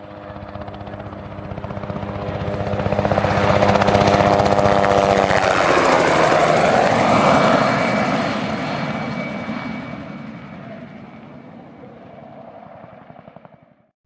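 Light two-bladed helicopter making a low, fast fly-by. The rotor and turbine sound grows louder as it approaches, drops in pitch as it passes about six seconds in, then fades away. It cuts off abruptly near the end.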